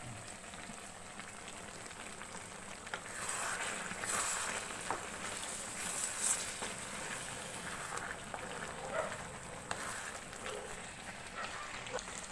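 Mixed vegetable curry sizzling steadily in a kadai, with a spatula stirring and scraping the pan now and then.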